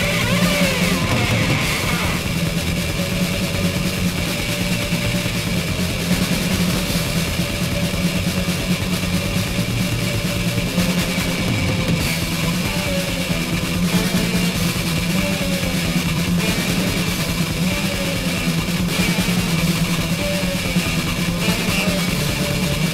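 Death/thrash metal: distorted electric guitars over bass and fast, dense drumming, playing steadily and loudly.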